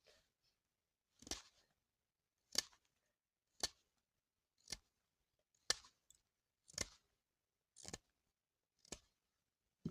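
About nine short, sharp cutting or scraping strokes at a steady pace of about one a second.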